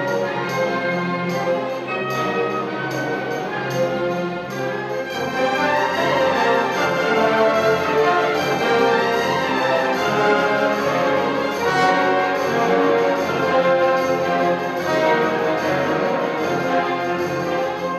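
Symphony orchestra playing a classical piece, strings, woodwinds and brass together, growing fuller and louder about five seconds in.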